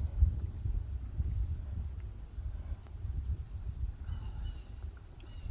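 Insects, crickets by the sound, trilling steadily in a high, even band throughout, under an uneven low rumble.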